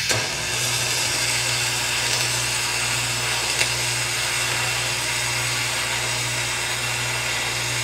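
Electric arc welding a continuous bead on a boat's metal cap rail: a steady hiss with a low hum that starts abruptly.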